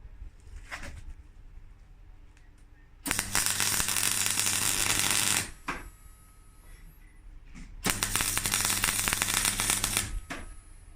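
Electric arc welding on steel box section: two welding runs of about two seconds each, a dense steady crackle with a low electrical hum under it, the first starting about three seconds in and the second just before eight seconds.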